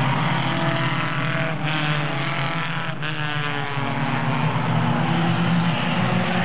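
Several four-cylinder stock cars racing at speed, their engines running in overlapping notes whose pitch shifts as the cars pass and lap around.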